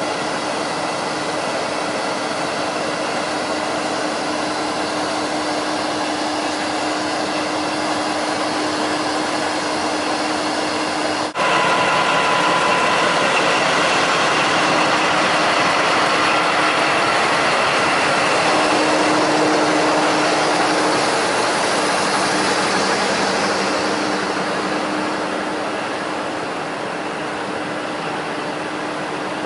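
Diesel locomotive DF.2010 running steadily close by, a loud mechanical drone with a steady hum. There is a brief break about eleven seconds in, after which it is louder, and it eases off a little near the end.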